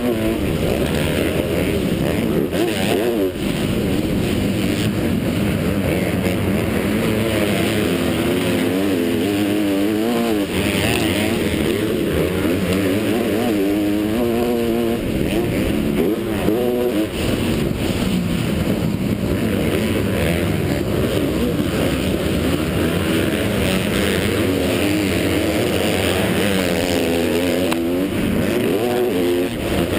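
Motocross bike engine racing hard on a dirt track, heard close from on the bike. Its revs climb and drop again and again with throttle and gear changes.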